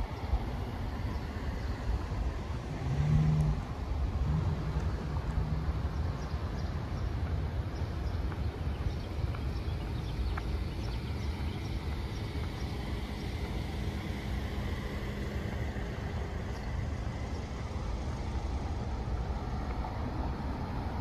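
Outdoor roadside ambience: a steady low rumble of wind and traffic, with a car going by and its engine hum briefly louder about three seconds in.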